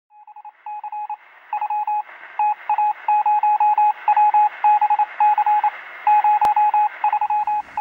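A single beeping tone keyed on and off in short and long pulses, like Morse code, over a steady hiss of radio static, with one sharp click about six and a half seconds in.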